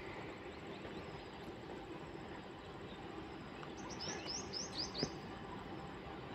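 A bird sings a quick run of five or six high, falling notes about four seconds in, over the faint steady rumble of a distant approaching electric freight train.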